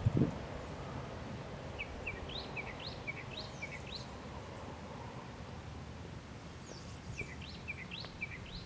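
A small bird's quick run of short, rising chirps, in two bursts about two seconds in and again near the end, over a steady low background noise.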